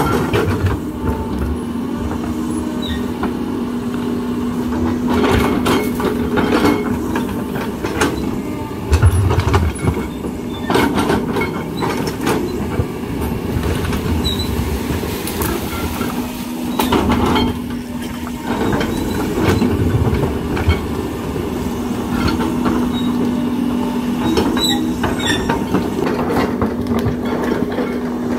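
CAT 320D hydraulic excavator digging: its diesel engine runs under load with a steady whine that comes and goes. The bucket scrapes through soil and roots, with scattered knocks and clanks, the heaviest about nine seconds in.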